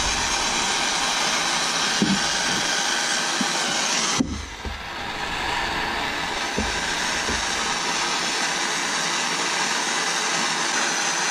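Air-acetylene torch with a size 4 tip burning with a steady hiss, heating a buckle up to hard silver solder temperature; the sound dips briefly about four seconds in. A few low knocks come from the torch hose bumping the camera stand.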